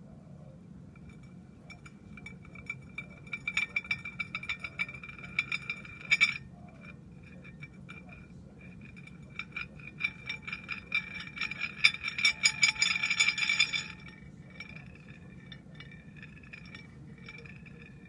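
Handmade glass spinning top chattering on a ceramic plate as it slows and wobbles: two spells of rapid glassy clinking and rattling with a ringing tone, the second the loudest. Then a softer ringing that swells about once a second as the top rolls around on its side.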